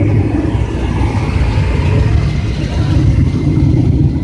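Engine of a pulling vehicle at a truck pull, running loud and steady at high revs.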